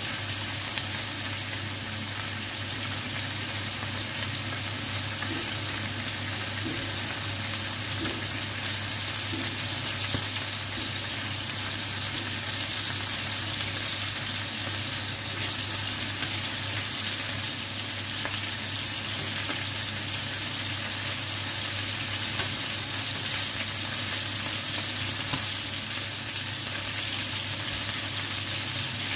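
Chicken pieces frying in hot oil in a pan with a steady sizzle. A few light clicks come from metal tongs against the pan as the pieces are turned.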